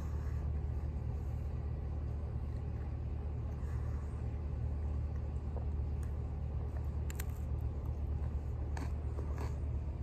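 Someone chewing a bite of crisp thin-crust pepperoni pizza, with a few faint crunches in the second half, over a steady low rumble.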